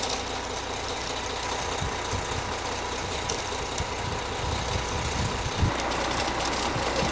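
Concrete mixer truck's diesel engine running steadily during a concrete pour, with a low thump about five and a half seconds in.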